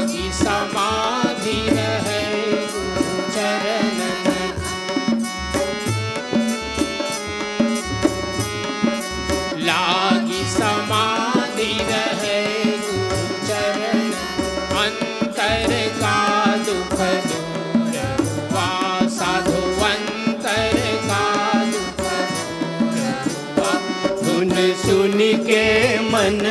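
Devotional bhajan music: a harmonium playing the melody over a steady tabla beat.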